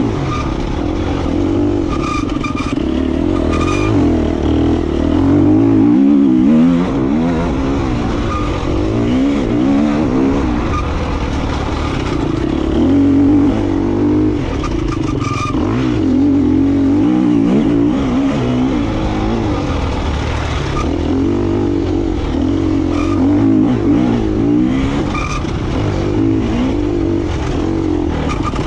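KTM EXC 250F enduro bike's single-cylinder four-stroke engine running under load on the trail, its revs rising and falling again and again. Short knocks and rattles come through now and then.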